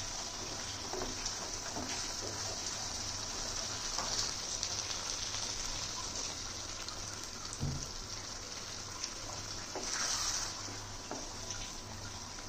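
Thick curry sizzling in a nonstick pan, with a wooden spatula scraping and stirring through it and milk poured in partway through; a dull knock a little before the middle of the second half.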